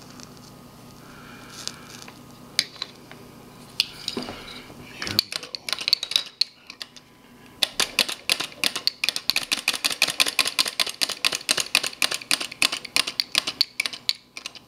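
Glass-cylinder flame eater (vacuum) model engine turning over and ticking rapidly, about six clicks a second, from about five seconds in until just before the end, with a short break in between. The engine is not yet firing reliably: the burner flame is still being set at the flame port.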